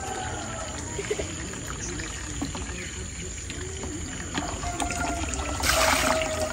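Water poured and trickling into a basin as raw chicken pieces are rinsed by hand, with a louder splash of water about five and a half seconds in.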